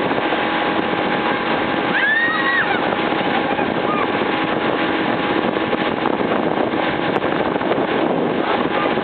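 Motorboat under way: a steady engine and rushing noise of the hull through the water. About two seconds in, a brief high-pitched voice rises and falls over it.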